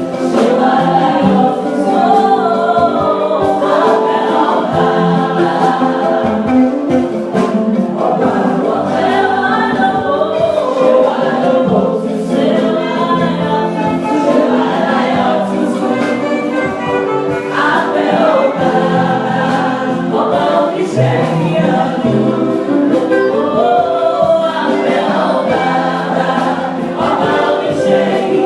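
Adult church choir singing an anthem, many voices holding and moving between sustained notes, with short regular strikes under the singing.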